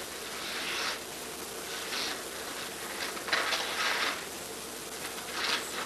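Wrapping paper rustling and tearing in about four short crinkly bursts as a present is unwrapped, over a steady background hiss.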